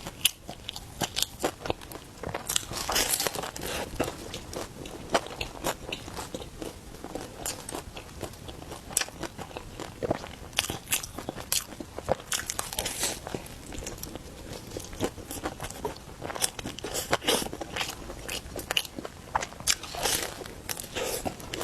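A person biting into and chewing roujiamo, a Chinese flatbread sandwich stuffed with meat, close to the microphone: repeated crisp crackles and crunches of the baked bun.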